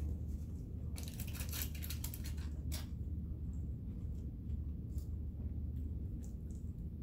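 Crinkling and crackling of food packaging being handled, a dense run of about two seconds starting a second in, then a few lighter ticks, over a steady low hum.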